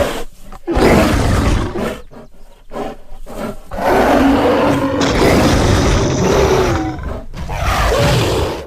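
Sound-designed sabre-toothed bear creature roars, layered from bear, big-cat and monster recordings: a brief snarl, then two long roars with sliding pitch, the second lasting about four seconds and fading near the end.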